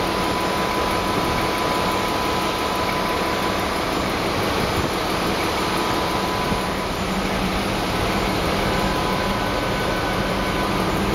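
River cruise boat's engine-room machinery running: a steady mechanical drone with a thin, steady whine through it.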